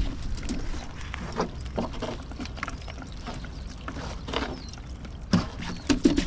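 Wind rumbling on the microphone, with irregular knocks and taps scattered over it; the strongest come about five and six seconds in.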